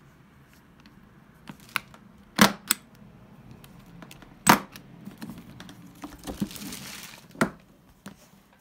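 Brass push-button latches on a leather briefcase's combination locks snapping open: several sharp metallic clicks, the two loudest about two and a half and four and a half seconds in. A second or so of rustling comes between them and a last click near the end.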